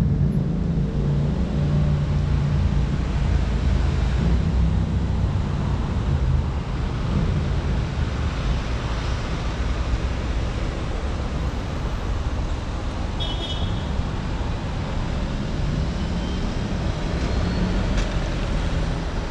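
Steady road traffic noise mixed with wind rushing over the microphone of a camera on a moving bicycle. A motor vehicle's engine is loud at first and fades within the first couple of seconds.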